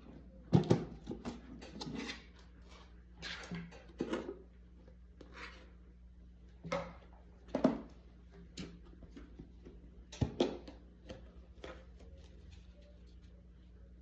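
Irregular knocks, clicks and rustles of things being handled, over a steady low hum; the handling stops about twelve seconds in.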